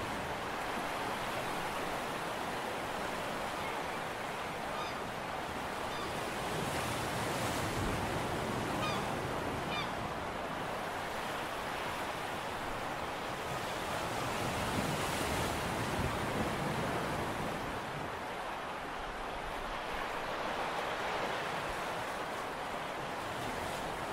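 Steady rushing of small sea waves washing in, with wind on the microphone. A few faint, short high chirps come between about five and ten seconds in.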